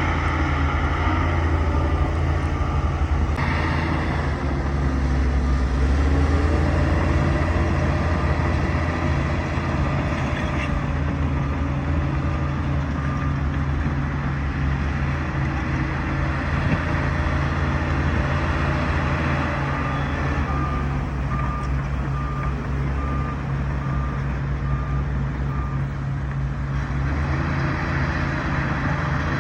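Bulldozer's diesel engine running steadily under load, with its reversing alarm beeping in two spells, first from a few seconds in and later past the middle.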